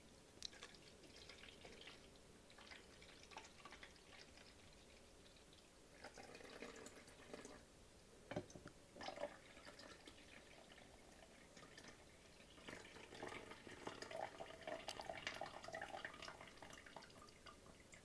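Water poured from a glass carafe into the plastic reservoir of a Mr. Coffee BL110 coffee maker: a faint trickling and splashing, with two sharp clicks about eight and nine seconds in, and a steadier pour for the last few seconds. It is the reservoir being filled before brewing.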